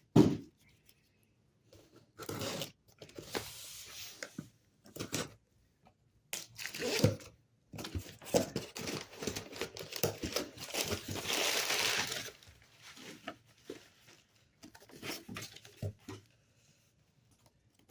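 Packing material and a cardboard shipping box being handled: crinkling, rustling and tearing in irregular bursts, with the longest stretch of crinkling about ten seconds in.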